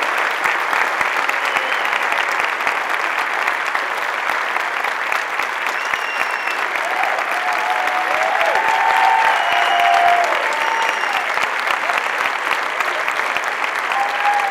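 A large audience applauding steadily, with a few voices calling out over the clapping about halfway through.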